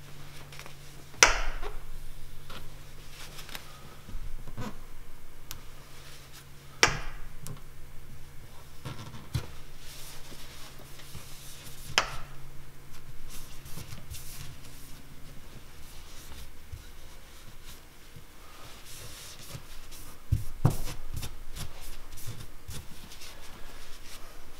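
A cloth rag rubbing and wiping over a boat's deck and transom, working fresh clear silicone around a fitting, with a scratchy rubbing texture. A few sharp knocks or clicks fall several seconds apart. A low steady hum runs underneath and stops about two-thirds of the way through.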